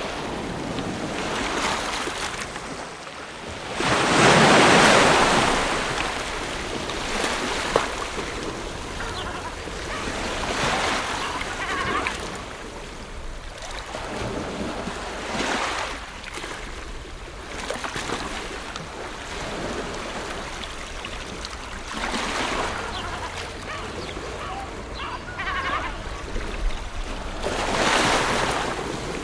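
Ocean surf washing onto a shore in a steady hiss, with waves surging up and falling back every several seconds. The loudest wave comes about four seconds in.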